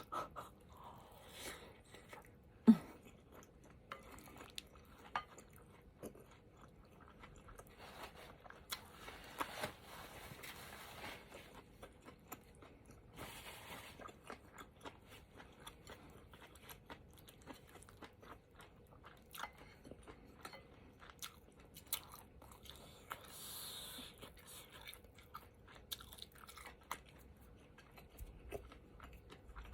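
Mouth noises of someone eating spicy soup with rice cakes and tofu puffs: steady chewing with scattered small clicks and a sharp knock a few seconds in. There are two longer hissy stretches, like slurps, about a third of the way through.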